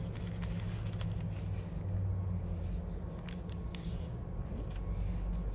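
Newspaper being folded and creased by hand on a plastic table: faint rustles and slides of paper. Under it runs a steady low rumble, louder than the paper.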